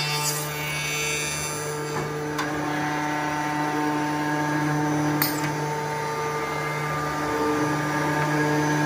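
Balestrini PICO/MD round end tenoner and mortiser running, its motors giving a steady whine over a low hum, with two sharp clacks about two and a half and five seconds in.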